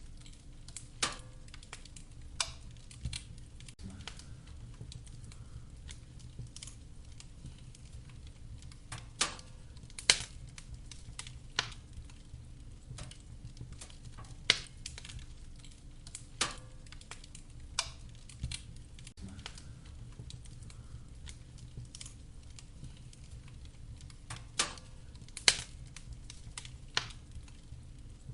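Wood fire in a fireplace crackling: irregular sharp pops and snaps of burning firewood, a few much louder than the rest, over a steady low background.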